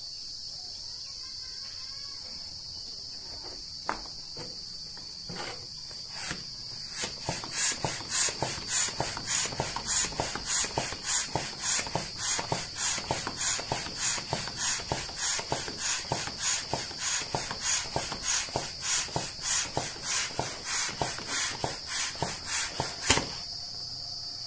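Foot-operated air pump being stepped on over and over, each stroke pushing a rush of air through its hose into an Intex inflatable pool. The strokes come about two to three a second, starting some six seconds in and stopping abruptly near the end. Under them runs a steady high-pitched insect chirring.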